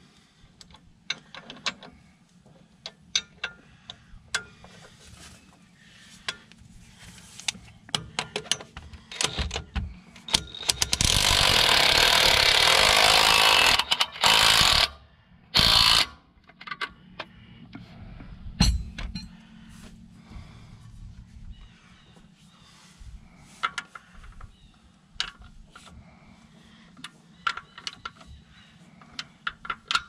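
Hand tools clicking and clinking on metal as the variable-speed pulley's cylinder is threaded in on a combine. About eleven seconds in, an impact wrench runs for about three and a half seconds, then gives one short burst.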